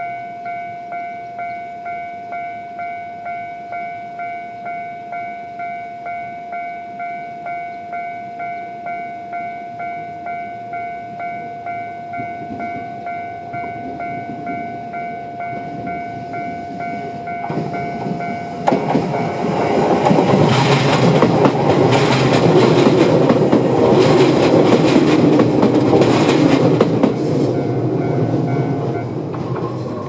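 Tobu-type electronic level-crossing bell ringing steadily, about two strikes a second. From about 18 seconds in a Tobu 850 series local train runs through the crossing, its wheels clattering over the rails and drowning the bell, which stops near the end as the train clears.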